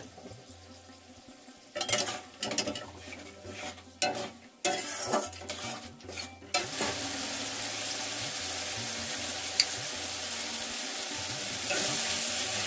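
Steel spatula scraping and stirring peas, tomatoes and turmeric in an aluminium kadai, the strokes coming in irregular bursts. From about halfway through, the hot oil sizzles steadily.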